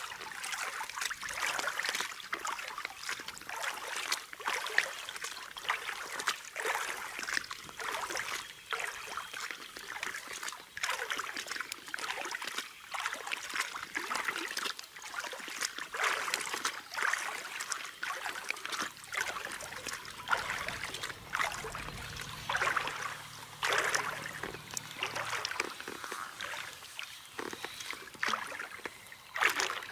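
Water splashing and sloshing around a belly boat in a string of short, irregular splashes.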